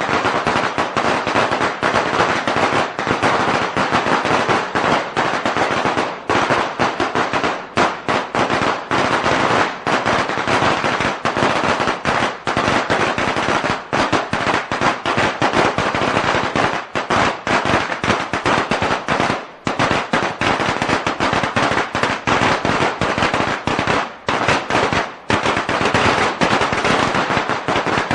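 A string of firecrackers going off in a rapid, continuous crackle of bangs, with a few brief dips.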